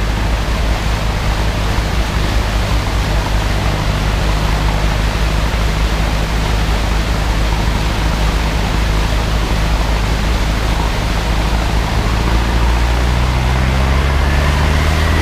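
A 4x4's engine running steadily under load as it pushes a bow wave through deep flood water, over a constant rush of churning water. The engine note rises near the end.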